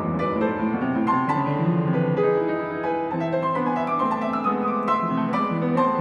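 Solo piano playing, a steady stream of notes with no pauses.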